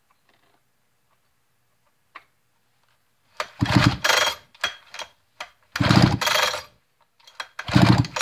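Sachs-Dolmar 116 chainsaw's recoil starter rope pulled three times, about two seconds apart, spinning the engine over freely with the spark plug out: a check for spark.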